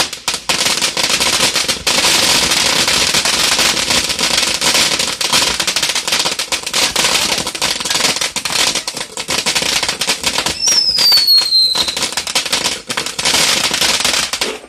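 A ground fountain firework spraying sparks, with a dense, continuous crackling over a steady hiss. A brief falling whistle sounds about three quarters of the way through.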